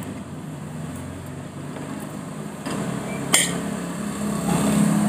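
Cutlery clinking once on a plate a little over three seconds in, over a steady low hum.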